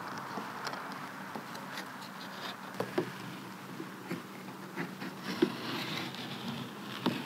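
Scattered soft clicks, ticks and rubbing as a rubber window bead is pried and pulled out of a camper shell's window gasket with a plastic trim tool, over a steady faint hiss.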